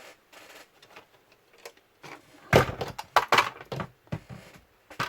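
Laptop body parts being handled and fitted: faint scrapes, then a quick run of sharp plastic knocks and clatters from about halfway through.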